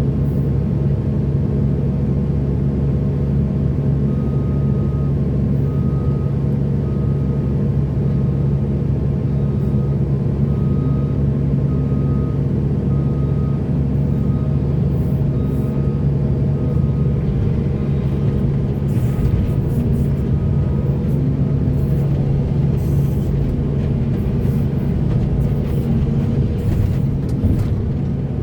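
Heavy diesel construction machinery running steadily with a deep engine hum, while a reversing alarm beeps about once a second from a few seconds in until a little past the middle.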